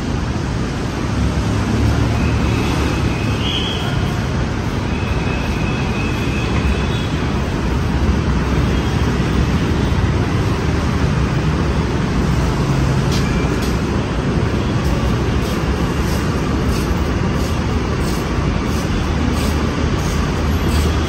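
Steady low rumble of road traffic with the general din of a busy station, no clear single source. From about halfway on, faint light clicks of footsteps.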